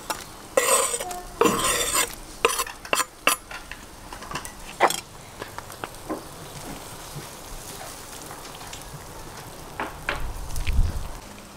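A knife scraping sliced olives off a wooden chopping board into a cauldron of simmering soup, with a quick run of sharp clicks and knocks over the first five seconds. Near the end a slotted metal skimmer stirs the soup, with a few low thuds and clatter.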